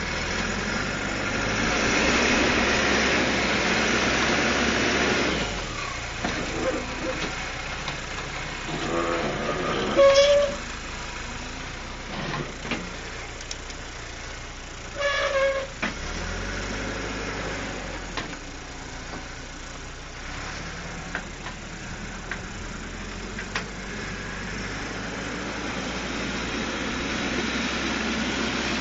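Caterpillar 416C backhoe's Perkins turbo diesel running, louder and under load for the first five seconds, then settling to a lower, steady run. Two short, high tones sound about ten and fifteen seconds in, the first the loudest sound.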